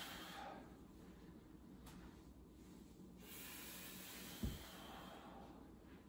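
A person breathing heavily while exercising: a long breath right at the start and another from about three seconds in. A short soft thump comes about four and a half seconds in.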